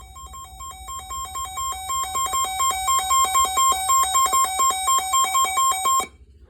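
Weather alert radio alarm: two high beeping tones taking turns rapidly, growing louder over the first few seconds, then cutting off suddenly about six seconds in. It signals an incoming flash flood warning.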